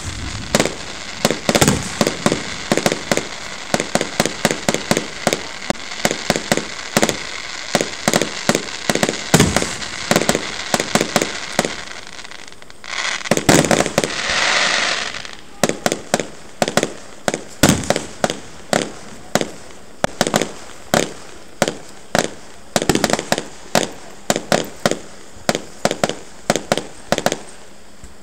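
Fireworks bursting in a rapid barrage, a quick run of sharp reports several a second, with a stretch of hissing crackle about halfway through.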